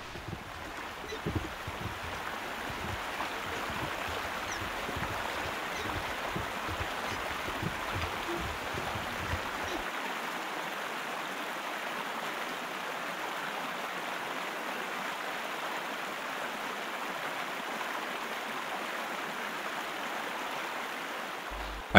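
Fast river water rushing through rapids, a steady even rush. An uneven low rumble under it stops about halfway through.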